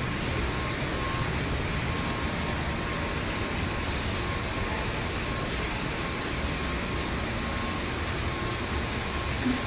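Steady rushing room noise of an indoor spa pool hall, with a faint steady high tone running through it.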